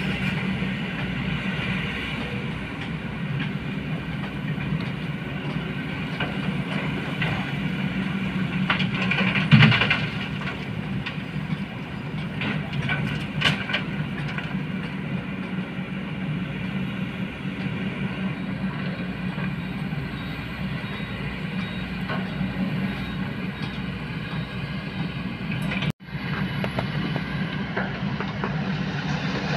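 Kobelco hydraulic excavators' diesel engines running steadily under load while they dig and load a dump truck. A loud knock about ten seconds in and a few sharp clanks a few seconds later, with the sound cutting out for an instant near the end.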